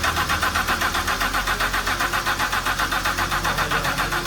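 BMW E90 engine cranking on its starter motor without firing, a steady rhythmic chugging about five or six times a second. It is a no-start: the new fuel pump runs but the engine does not catch.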